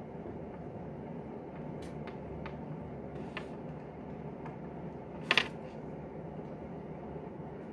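Steady low background noise with a few faint ticks, and a sharp double click a little past five seconds in.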